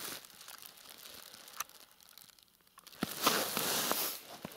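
Cloth sack rustling as it is gathered at the neck and lifted by gloved hands, with a few sharp clicks; the rustle swells loudest about three seconds in as the sack is hoisted up to be weighed.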